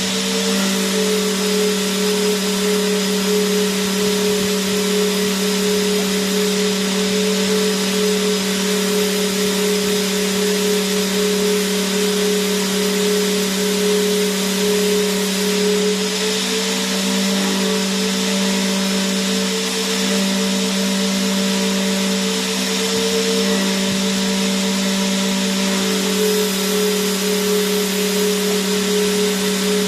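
Vacuum cleaner motor running continuously: a constant hiss of rushing air over a steady motor hum.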